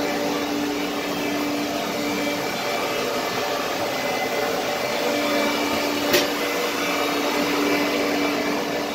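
Steady rushing air-handling noise with a low hum, like ventilation blowers running inside a submarine's steel compartment. There is a single sharp click about six seconds in.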